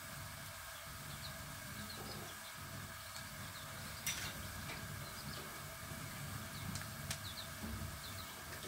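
Faint background sound: small birds chirping now and then over a low steady rumble, with a sharp clink about four seconds in and another about seven seconds in.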